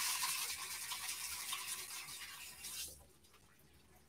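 Kitchen tap running as hands are washed under it: a steady hiss of water that fades and is shut off about three seconds in.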